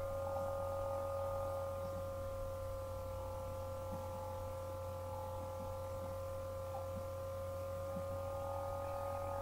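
Steady electrical hum made of a low drone and several fixed higher tones, unchanging throughout, with a few faint soft ticks.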